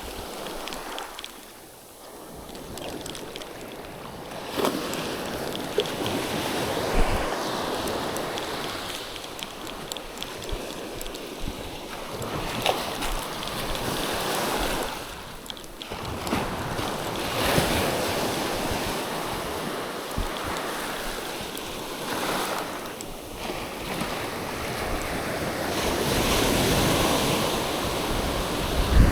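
Sea waves washing onto the shore, the noise swelling and falling back every few seconds, with wind buffeting the microphone.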